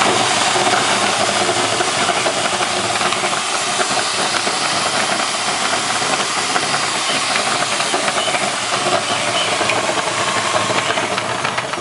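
Homemade potato peeler driven by a cordless screwdriver: the potatoes tumble and scrape against the sandpaper lining inside the drum, with a steady rattling hiss over the motor. It winds down near the end.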